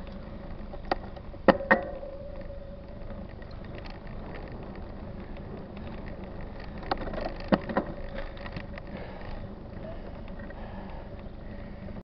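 Bike Soul SL 129 mountain bike rolling down an asphalt road: a steady hum of tyres and rushing air, broken by a few sharp knocks and rattles, a few about one to two seconds in and a couple more around seven to eight seconds in.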